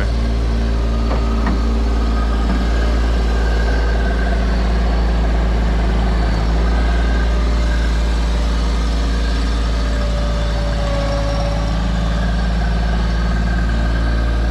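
An engine running steadily, with a heavy low rumble.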